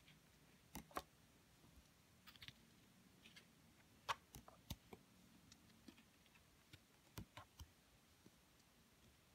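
Tarot cards being flipped over one at a time: faint, irregular clicks and snaps of card stock, the loudest about four seconds in.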